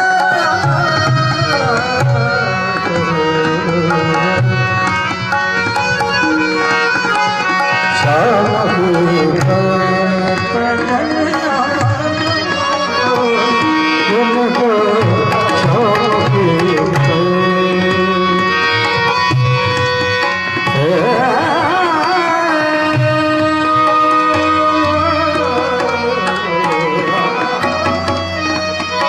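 Indian folk song: a singer's voice gliding and ornamenting a melody over a steady hand-drum rhythm, with melodic accompaniment, playing continuously.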